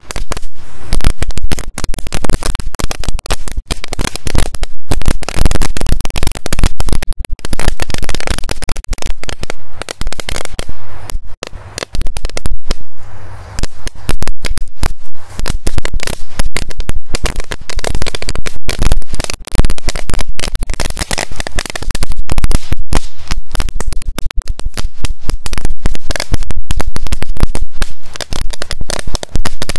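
A two-metre machine-gun firecracker belt going off in a long, rapid, almost continuous string of sharp bangs. The bangs thin out briefly about eleven to fourteen seconds in, then keep going.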